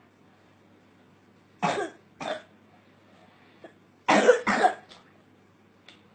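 A young boy coughing, a night-time cough from postnasal drip: two coughs about a second and a half in, then two more about four seconds in.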